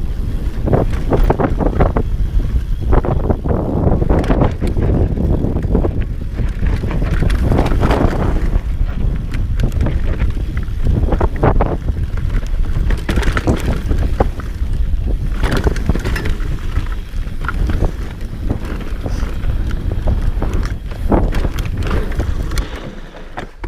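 Wind buffeting the microphone during an off-road enduro ride, with irregular rattles and knocks from the bike going over rough ground.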